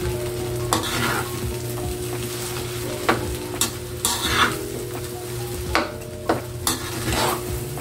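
Metal spoon scraping and tossing fried rice around an aluminium wok as it fries, with a steady sizzle. A sharp scrape or clink of spoon on pan comes at irregular intervals, about once a second, over a steady low hum.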